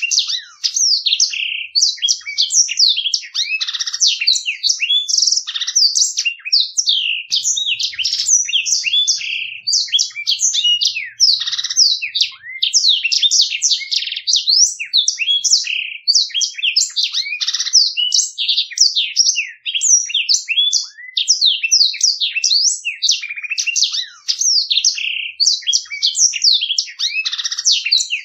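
Blackthroat (black-throated canary) singing a long, rolling song of fast twittering notes and trills, with only short breaks.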